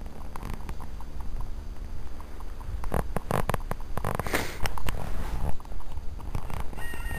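A horse's hoofbeats, muffled by snow, as it trots past, heard as scattered dull strikes over a steady low rumble.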